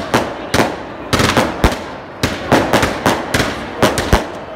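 Fireworks and firecrackers going off at a burning Fallas monument: a rapid, irregular string of sharp bangs, about three or four a second.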